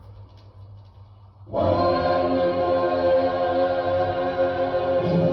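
Quiet for about a second and a half, then a choir comes in suddenly and holds one sustained chord.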